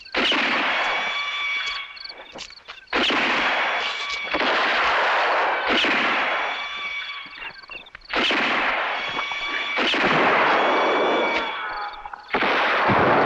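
Gunshot and ricochet sound effects in a sound-art collage: seven sharp blasts, each fading away over a second or two, with faint steady tones between them. A falling whine starts near the end.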